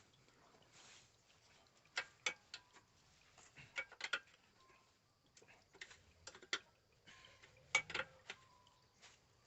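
Irregular clicks and metal taps of hand wrenches working on the motorcycle's exhaust bolts, including a ratchet wrench. A few sharper clicks come in pairs, about two seconds and eight seconds in.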